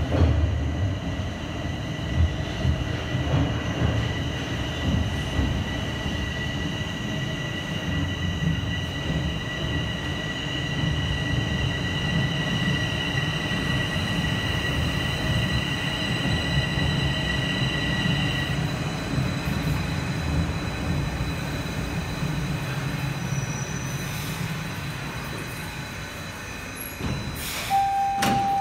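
Bombardier Toronto Rocket subway train pulling into the station: a steady rumble of wheels on rail with a steady high-pitched whine that stops about two-thirds of the way through as the train slows. A short tone and a sharp knock come near the end.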